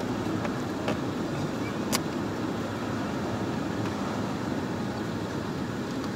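Plastic interior trim panel being pushed into place by hand: a few light clicks and one sharp snap about two seconds in, over a steady low rumble.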